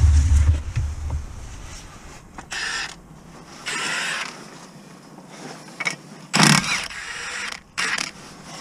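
Hand tools being worked on a car's front suspension: a socket and extension bar being fitted to a bolt at the hub, with intermittent metallic creaking and scraping. A low thud and rumble fill the first second, and a sharp knock comes about six and a half seconds in.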